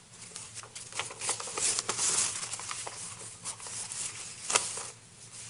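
Papers rustling and being handled close to a microphone: irregular crackling and clicks, thickest about two seconds in, with one sharp click near the end.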